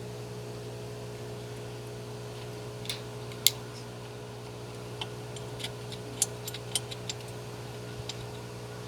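Core drilling machine's motor running with a steady hum, with a scatter of sharp clicks from about three to seven seconds in.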